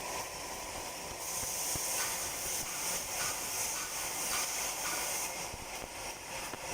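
Pulsed fiber laser cleaning machine at work, giving a steady high-pitched hiss. The hiss grows stronger about a second in and again near the end.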